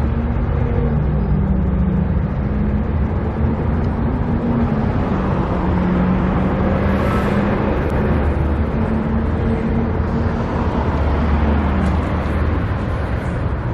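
Steady road-traffic noise with a running engine's low hum underneath, and a vehicle passing about seven seconds in.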